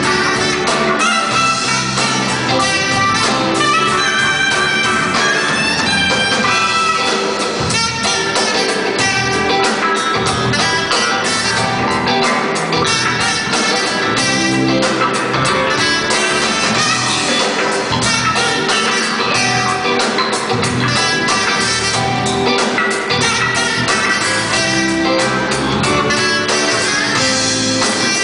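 Live smooth-jazz band playing: a soprano saxophone leads the melody over electric guitar, drum kit and keyboards.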